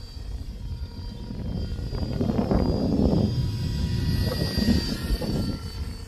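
Electric 330S RC helicopter flying, with a steady high motor whine over its rotor noise, which swells louder twice. Heavy wind rumbles on the microphone throughout.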